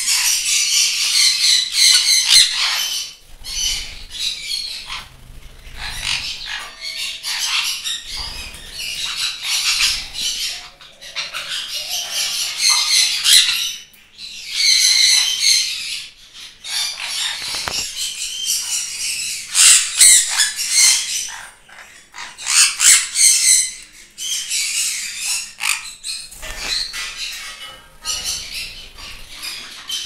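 Sun conures squawking: harsh, shrill screeches in repeated bouts, with short lulls now and then.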